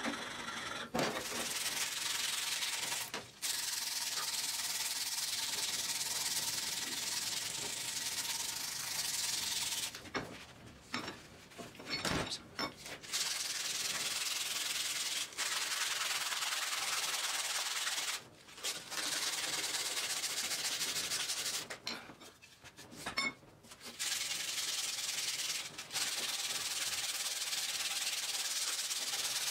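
Sandpaper rubbed by hand along a wooden axe handle in long, steady passes, stopping briefly several times.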